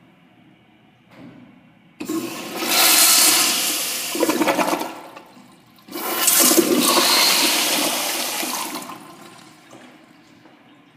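Commercial toilet with a flushometer valve flushing: a loud rush of water starts suddenly, drops off briefly, surges a second time, then tapers away.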